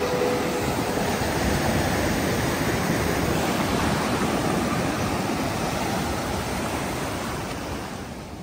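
Ocean surf breaking and washing up the beach, a steady rush of waves and foam that fades out near the end.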